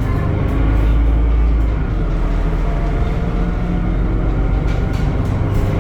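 Temsa Avenue LF 12 city bus, with a DAF Euro 5 EEV diesel engine and ZF automatic gearbox, running under way: a steady low engine and drivetrain drone that swells slightly about a second in, with a few faint ticks near the end.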